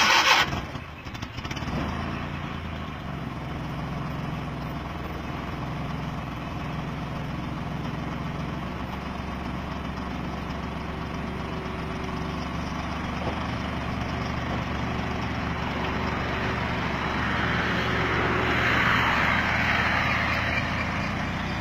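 Minivan engine running steadily, turning a water pump coupled to the hub where a wheel has been removed: a jugaad water pump. A loud short burst comes right at the start, and a hissing noise swells near the end.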